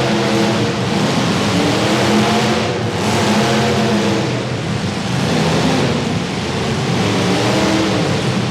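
Demolition derby car engines running and revving hard together, a loud continuous mix of engine note and noise that rises and falls in pitch.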